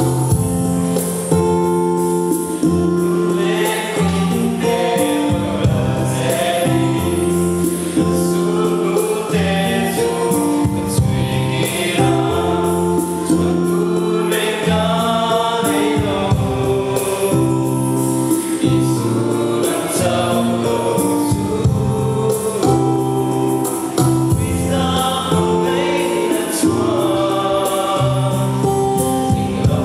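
A mixed group of men and women singing a Mizo gospel song together in harmony, in long held notes.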